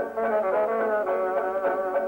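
Instrumental music score: a busy melody of quick, short notes over several sustained parts, playing steadily.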